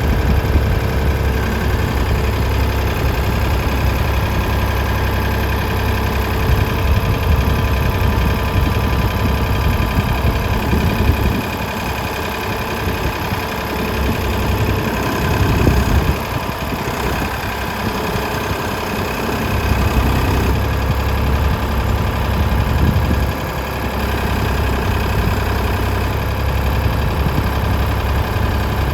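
Ford 555B backhoe's diesel engine running steadily, its level shifting a few times.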